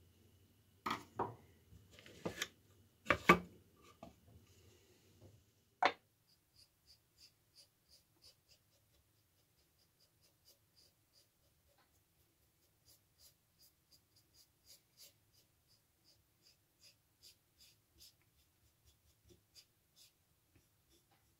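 A few sharp knocks and clatter of wooden box and hardware being handled, then faint, regular light strokes about two to three a second: a brush working wood stain onto the wooden box.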